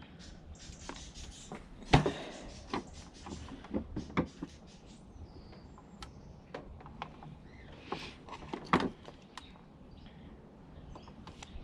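Irregular clicks, taps and knocks of hand tools and the heater's casing parts being handled during a teardown, with a sharper knock about two seconds in and another near nine seconds.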